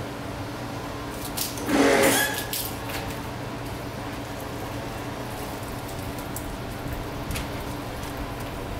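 Microfibre wash mitt wiping soapy car paintwork, with one short, loud wet swish about two seconds in, over a steady low hum.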